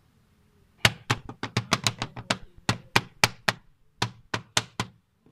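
Maruti Swift Dzire cabin air filter being knocked repeatedly to shake the dust out of it: a fast, uneven run of sharp taps, about four a second, starting about a second in.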